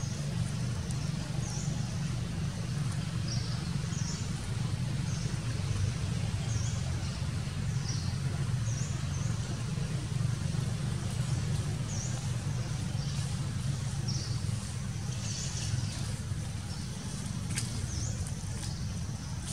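A steady low rumble, with a bird's short high chirp repeating every second or two and a few faint clicks near the end.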